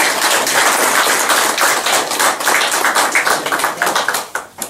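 Audience applauding: a dense run of many hand claps that stops abruptly near the end.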